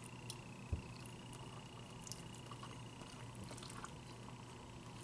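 Faint chewing of pasta, with small wet mouth clicks scattered through and one low thump less than a second in.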